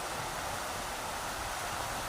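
Rushing river water: a steady, unbroken rush of flowing water.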